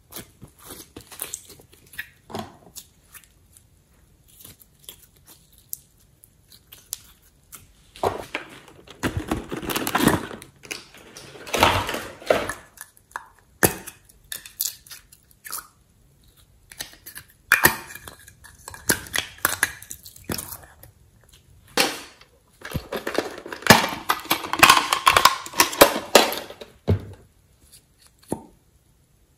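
Slime being squeezed out of plastic tubs and jars and worked by hand, giving wet squelching, crackling and clicking in irregular bursts.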